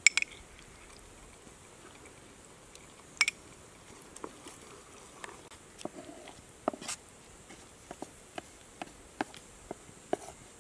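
Wooden spatula stirring a thick mushroom cream sauce in a non-stick frying pan, knocking lightly against the pan in a string of short taps, about two a second near the end. A couple of sharp, bright clinks near the start and another about three seconds in.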